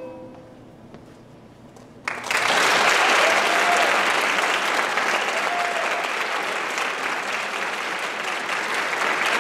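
The last ukulele note dies away, and about two seconds in an audience breaks out into loud, sustained applause.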